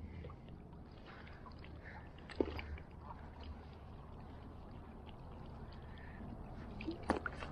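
Faint lapping and trickling water with scattered small knocks and clicks of handling; one sharper knock about two and a half seconds in and a few clicks near the end.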